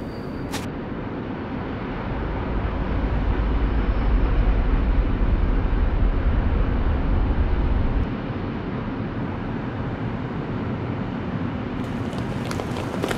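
Steady rushing, rumbling noise, with a deep rumble that swells about two seconds in and drops away suddenly about eight seconds in; a few sharp clicks near the end.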